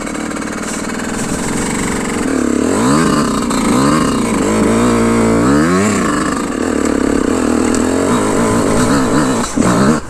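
Yamaha YZ125 two-stroke dirt bike engine lugging up a trail climb. From about two seconds in the revs rise and fall over and over as the throttle is worked, then settle to a steadier run.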